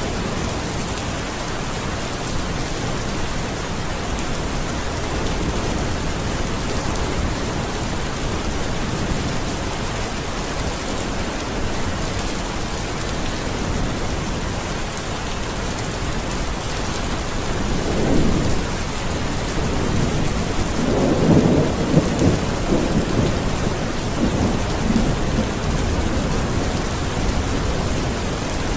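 Steady heavy rainfall, with thunder rumbling twice about two-thirds of the way through: a short rumble, then a longer, louder rolling one a few seconds later.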